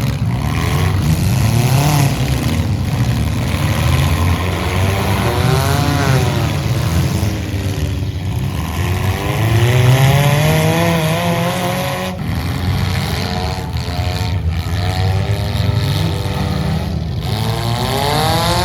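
Demolition derby cars' engines running and revving, the pitch rising and falling several times, with more than one engine heard over the arena noise.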